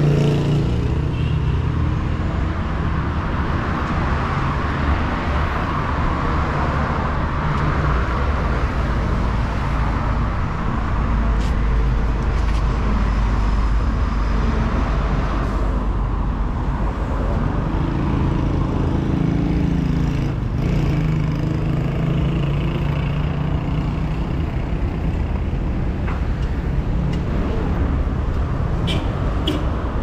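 Road traffic on a busy city street: car engines and tyres making a steady rumble, with a heavier engine hum growing louder and passing close in the second half.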